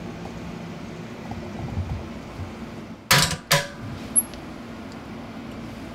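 Benchtop centrifuge (Centra CL2) lid being released and opened: two loud plastic clacks about three seconds in, then a sharp click, over a faint steady low hum.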